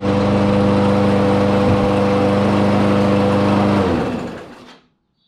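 Troy-Bilt TB110 push mower's small engine running steadily and loud just after a pull start, then dropping in pitch and fading out about four seconds in as it dies.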